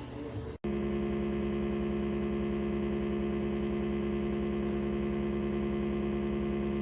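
Beverage fridge compressor running with a loud, steady hum made of several steady tones, starting abruptly about half a second in after a moment of music.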